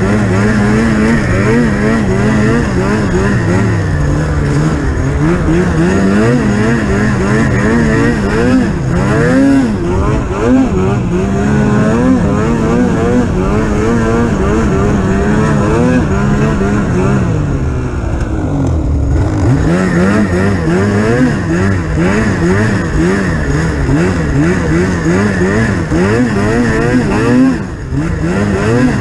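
Polaris Pro RMK 800 snowmobile's two-stroke twin engine being ridden hard, its pitch rising and falling again and again as the throttle is worked. About two-thirds of the way through the revs drop briefly, then climb again.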